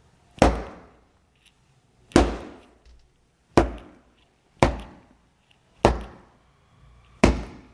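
Foley punch sound effects: six heavy, dull impacts struck by hand about a second apart, each with a short decaying tail.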